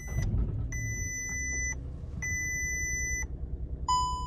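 Skoda Fabia dashboard warning beeps: three high beeps about a second long, spaced evenly, then a lower chime near the end, over the low hum of the engine running.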